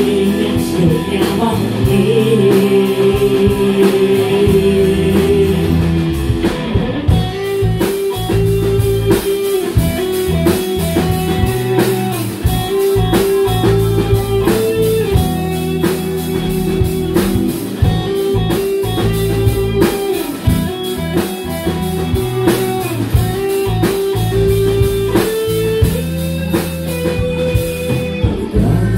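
Live band playing an instrumental break of a rock song: strummed acoustic guitar, keyboards and drum kit under a sustained melody line, with the drum beat coming through more sharply from about seven seconds in.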